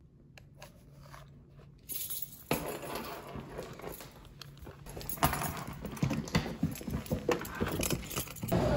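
A hard-shell suitcase being handled and wheeled across a floor: a run of small clicks and rattles that starts about two seconds in and gets busier over the last few seconds.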